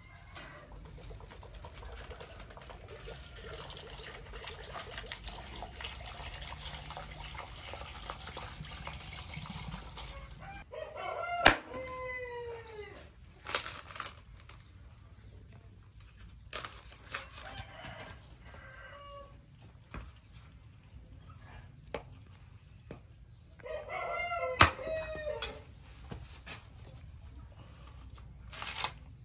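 A rooster crows twice, about 11 and 24 seconds in, each crow about a second and a half long. Between the crows are scattered sharp chops and knocks, with scraping in the first part, as a hand-forged knife cuts into and splits a young green coconut's husk.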